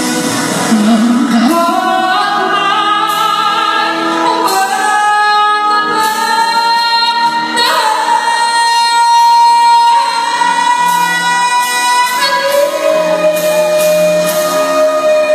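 A high solo singing voice over backing music, holding long notes: a high note held for about four seconds past the middle, then a lower note held near the end.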